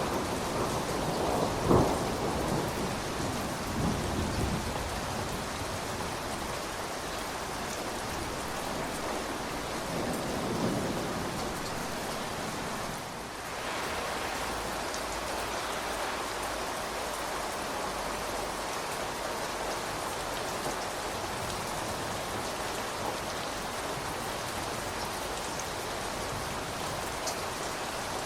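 Steady rain falling, with a roll of thunder dying away over the first few seconds, a sharp crack about two seconds in, and a weaker rumble around ten seconds in.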